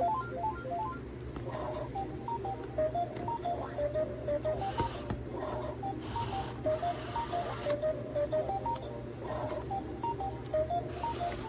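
Toy mini claw machine playing its electronic tune, a simple melody of short beeping notes, over a steady low hum, with a few brief bursts of hiss.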